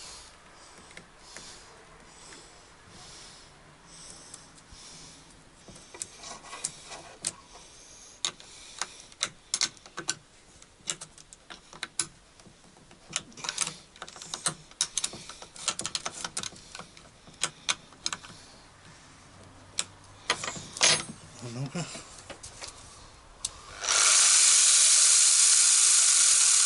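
Scattered metal clicks and knocks as a GRAND chainsaw attachment is fitted and its nut tightened on an angle grinder. Near the end the angle grinder starts and runs loud and steady, driving the dry chain around the bar with nothing being cut.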